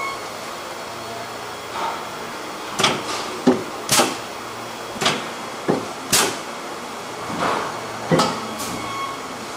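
A stainless steel wok body being handled and set onto a steel press die: a run of about ten sharp knocks and clinks, irregularly spaced, over a steady factory hum.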